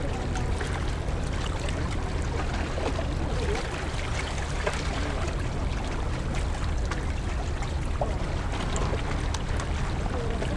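Large car ferry under way, its engines giving a low, steady rumble, with water washing along the shore.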